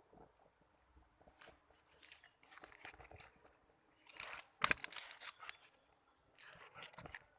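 Rustling and crackling handling noises in irregular bursts, with the loudest cluster of sharp crackles about four to five seconds in.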